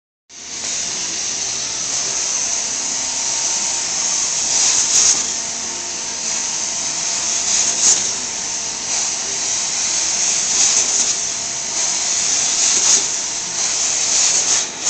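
Carpet steam-cleaning (hot water extraction) wand running over carpet: a loud, steady hiss of vacuum suction that starts suddenly, with a few brief louder surges.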